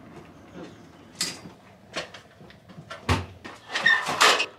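Metal stepladder being folded up and handled: a few separate knocks, then a louder rattling clatter with a faint metallic ring near the end.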